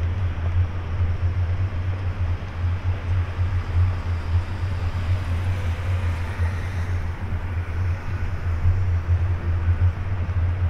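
City street ambience dominated by a steady low rumble, with an even wash of traffic noise above it.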